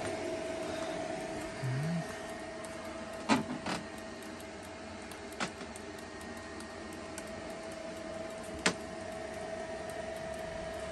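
Solar inverter charger running with a steady electrical whine over a hum. A few sharp clicks stand out: two close together about three seconds in, one mid-way and one near the end. A short low rising sound comes about two seconds in.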